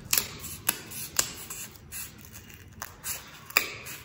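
A glued-on wall sticker being picked at and peeled off a wall: a handful of scattered clicks and crackles, the sharpest about three and a half seconds in.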